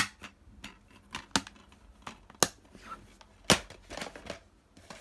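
A plastic DVD case and its disc being handled: a handful of sharp plastic clicks and knocks about a second apart, with faint rustling between them.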